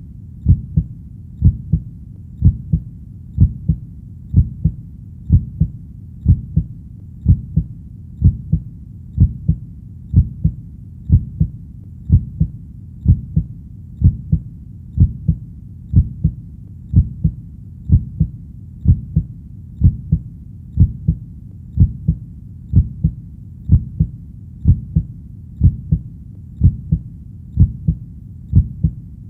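Heartbeat: low, even double thumps (lub-dub) repeating steadily about once a second over a faint low rumble.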